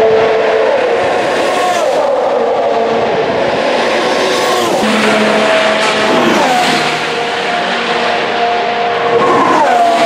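Formula 1 cars' turbocharged V6 engines running at high revs, their note falling in quick steps again and again as the drivers downshift under braking.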